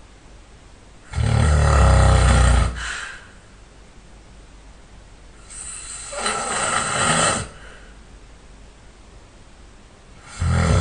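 A person snoring loudly in deep sleep: a rattling snore about a second in, a quieter, breathier breath around six seconds in, and the next snore starting near the end.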